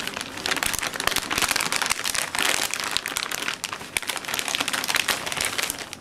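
Metallized anti-static bag crinkling and rustling as a motherboard is slid out of it, a dense, continuous run of crackles.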